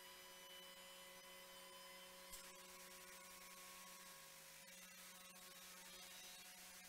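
Near silence: a faint, steady hum made of several held tones, with one faint click a little past two seconds in.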